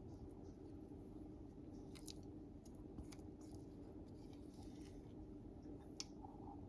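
Faint kitchen handling sounds: a few soft clicks and scrapes, the sharpest about six seconds in, over a steady low hum.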